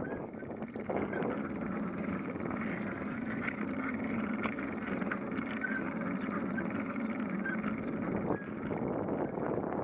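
A bicycle rolling along pavement: steady tyre and wind noise on the bike-mounted microphone, with light rattling clicks throughout.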